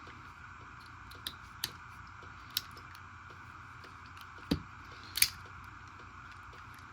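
A handful of sharp clicks and one duller knock as small hand tools are handled and set down, the loudest click near the end, over a faint regular ticking.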